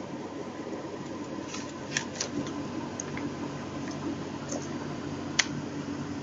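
Steady background hum, with a few light clicks and rustles of paper card being handled. A single sharp click about five seconds in is the loudest sound.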